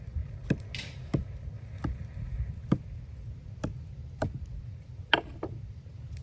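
A kitchen knife stabbing repeatedly into whole raw chickens, its point knocking on the wooden cutting board beneath: about eight short, sharp knocks at irregular intervals over a low steady rumble.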